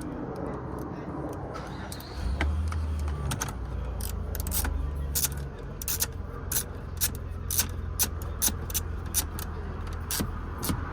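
A hand ratchet with a 10 mm socket on an extension clicking as it tightens a bolt, a sharp click every half second or so from about two seconds in. A low rumble runs underneath from about two seconds in.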